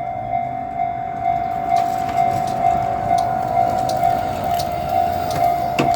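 Japanese level-crossing warning bell ringing: one steady tone repeating at about two strikes a second, with a low rumble underneath.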